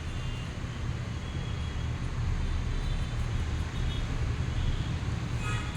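Steady low mechanical hum with a noisy hiss over it, holding even throughout.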